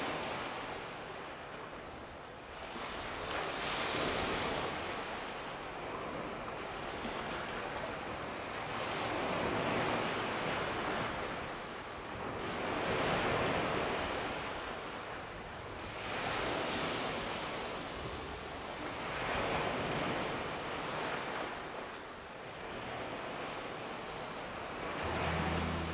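Sea waves washing onto a shore, the surf swelling and falling back every few seconds.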